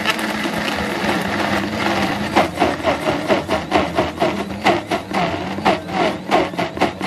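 Countertop blender running, blending an icy milkshake while a tamper is worked down through the lid. From about two seconds in the sound turns into a fast, even churning pulse, about four beats a second.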